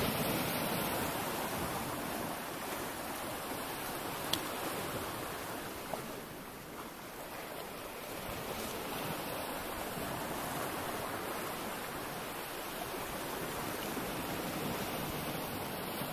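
Steady wash of sea surf on the beach, with a couple of small sharp clicks about four and six seconds in.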